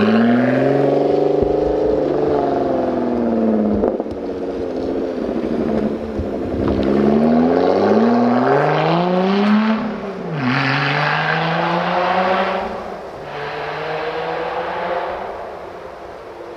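Lotus Evora 400's supercharged 3.5-litre V6 accelerating hard through several gears, the engine note climbing and dropping back at each upshift (about four shifts), then fading away toward the end as the car pulls off into the distance.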